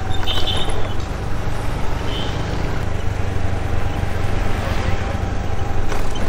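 Motor scooter riding along a street: steady engine and wind noise, heaviest in the low end, with road noise. Two short high chirps sound in the first couple of seconds.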